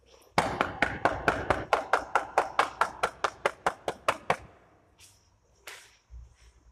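Rapid, even run of about twenty sharp claps, about five a second, lasting some four seconds; one fainter clap follows near the end.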